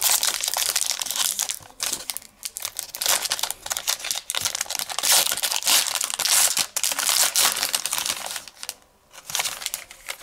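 Foil wrapper of a trading-card pack crinkling and tearing as it is ripped open and handled, in irregular bursts with a few short pauses.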